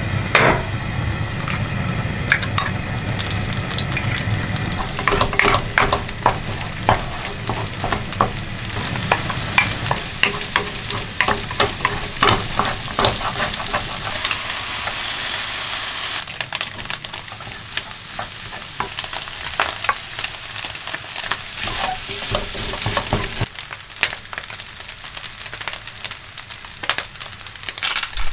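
Rice and egg frying in a pan on a gas stove, sizzling steadily while a wooden spatula stirs and scrapes them, with many quick clicks and taps of the spatula against the pan.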